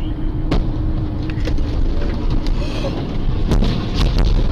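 Road and engine noise of a car at highway speed, recorded from inside the cabin. A series of sharp knocks runs through it, and the heaviest thuds come about three and a half to four seconds in.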